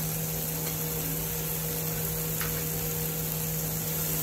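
Steady hum and hiss of a kitchen appliance, with soft stirring of an onion-tomato masala in a nonstick frying pan with a silicone spatula. A single light click about two and a half seconds in.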